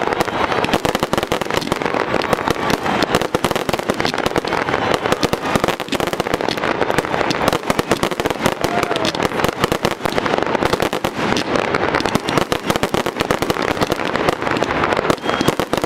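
Aerial fireworks display going off in a dense, unbroken barrage of rapid cracks and bangs as many comets and bursts fire at once.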